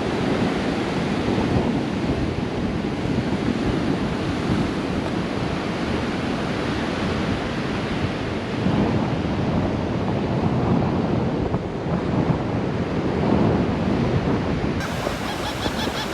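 Surf washing on a beach, mixed with wind buffeting the microphone. Near the end, birds start calling in short repeated high cries.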